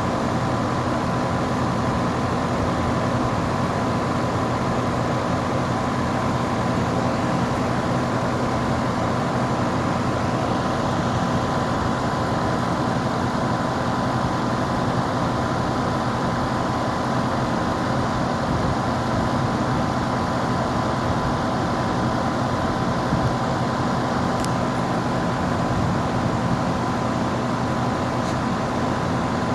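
2016 Lennox 2-ton heat pump outdoor unit running steadily in heat mode: the compressor hums, which the owner thinks is a Copeland scroll, and the fan blows air through the coil.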